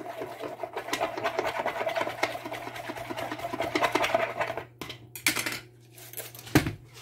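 A thin stirrer scraping rapidly around the inside of a plastic measuring jug as thickened melt-and-pour soap is given a good stir, stopping about five seconds in. A couple of short, sharp knocks follow near the end.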